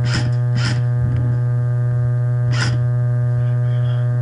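Single sharp pops of an airsoft rifle fired one at a time, two in quick succession in the first second and another about two and a half seconds in, over a loud steady electrical hum in the recording.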